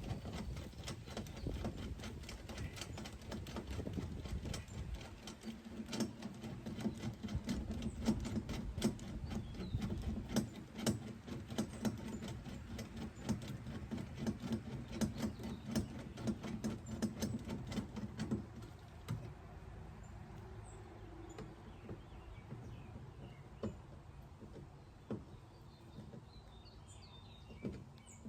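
Rapid irregular metal clicks and scrapes of an 11-in-1 screwdriver tightening a 3/8-inch nut and washer onto a toggle bolt through a metal strut, over a low steady hum from about five to eighteen seconds in. The clicking thins out in the second half, with faint bird chirps near the end.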